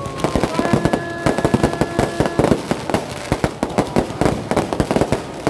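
Fireworks and firecrackers going off in a rapid, unbroken string of sharp bangs and crackles. A steady held tone sounds over them from about half a second in, for about two seconds.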